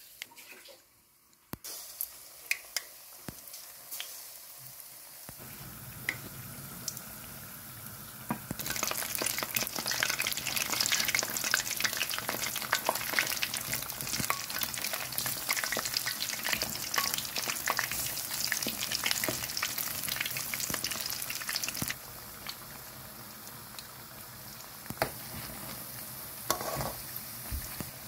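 Batter-coated chicken and potato fritters deep-frying in hot oil: a steady crackling sizzle with scattered sharp pops. It gets much louder and denser about eight seconds in and drops back abruptly about twenty-two seconds in.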